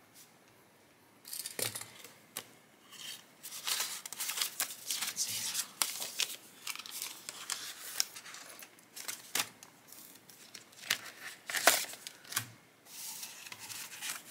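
Clear plastic binder envelopes and paper cards rustling and crinkling as they are handled, starting about a second in, with scattered sharp clicks and taps.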